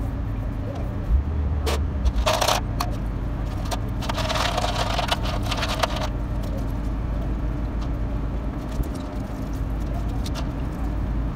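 Small steel bearing parts clinking and knocking together as hands scrub them with steel wool in a basin of dirty oily liquid. There are two spells of louder splashing and scrubbing, a short one about two seconds in and a longer one around four to six seconds, all over a steady low rumble.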